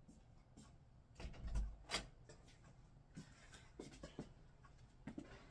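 Faint thumps and clicks of a person moving about in a small room with a frying pan in hand: a dull thump about one and a half seconds in, a sharp click just after, then a few lighter knocks.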